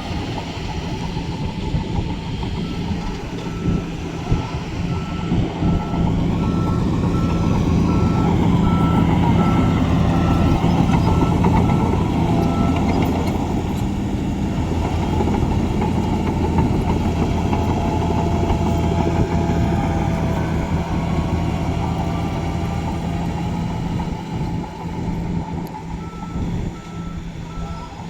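Heavy diesel construction machine running, with its reversing alarm beeping regularly for about ten seconds, then going quiet and starting again near the end.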